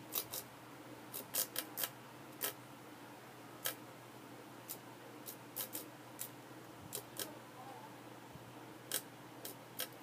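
Short, sharp clicks at irregular intervals, about eighteen of them, over a faint steady hum.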